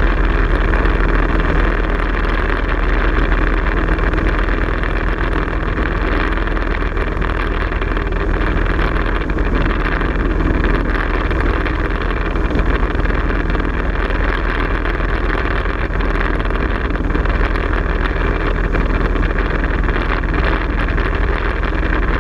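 Small propeller aircraft in flight: the engine and propeller drone steadily with air rushing past, heard from inside the cockpit. A low, even hum under a broad rushing noise, with no change in pitch.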